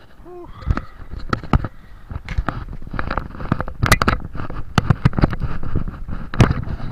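Phone handling noise: a run of irregular knocks and crackles as the phone is gripped and moved about, over a low rumble.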